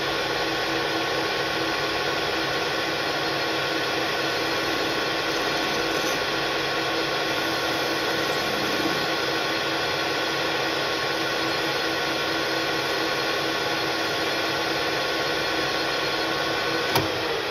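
AL-1324 centre lathe running at a steady speed, a motor whine with several even tones over a hiss, while the tool takes a cut on a small turned part. Near the end there is a click and the lathe begins to wind down, its pitch falling.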